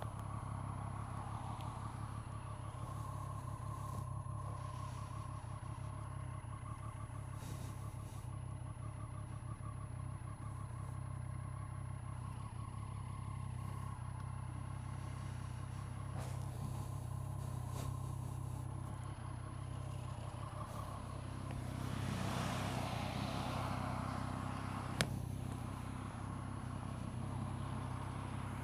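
Triumph Street Triple's three-cylinder engine idling steadily as the bike lies on its side. A swell of rushing noise comes about 22 seconds in, and a single sharp click about three seconds later.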